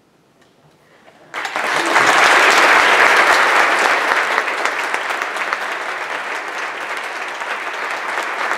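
Audience applauding, starting suddenly about a second in after a moment of quiet, loudest just after it starts and then holding steady.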